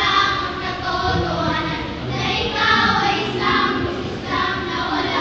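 A group of children chanting lines in unison, their voices rising and falling together in phrases.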